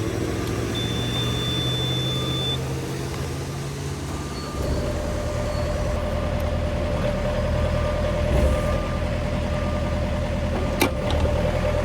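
Diesel engine of heavy tree-work equipment running steadily. About four and a half seconds in it gets louder and a steady whine joins it. There is a single sharp click near the end.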